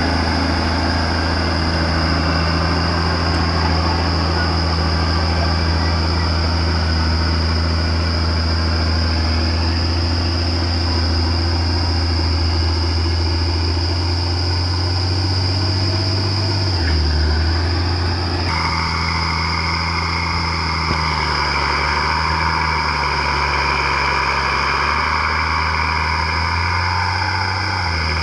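Komatsu D50A crawler bulldozer's diesel engine running steadily under load while the dozer pushes material, with a steady high whine over it. The engine note dips briefly, as if lugging, about two-thirds of the way through and again at the very end.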